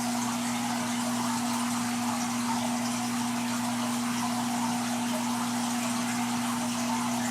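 Saltwater aquarium's pumps and powerhead running: a steady electric hum under the constant hiss of circulating water.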